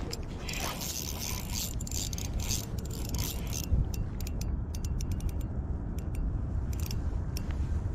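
Shimano Vanford spinning reel being cranked: its gears whir in stretches, with a run of sharp clicks in the middle.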